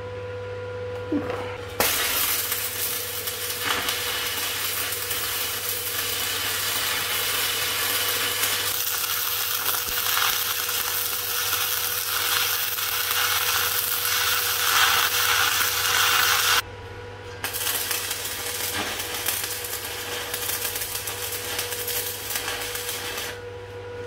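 Electric arc welding: steady crackling of the arc as steel angle-iron legs are welded to a steel base plate. It starts about two seconds in, breaks off briefly about two-thirds of the way through, then runs again until just before the end, over a steady low hum.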